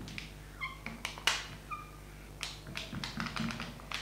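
Marker squeaking and scratching on a glass lightboard as hatching strokes are drawn: two short squeaks in the first two seconds, then a run of quick strokes.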